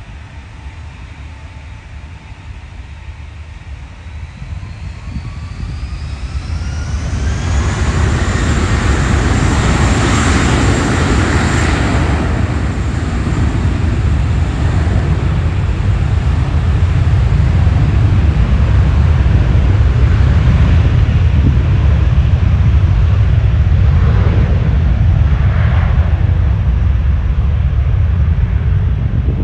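Finnair Airbus A321-231's IAE V2500 turbofans spooling up to takeoff thrust. A whine rises in pitch over a few seconds, then about seven seconds in it gives way to a loud, steady jet roar with deep rumble as the airliner makes its takeoff roll.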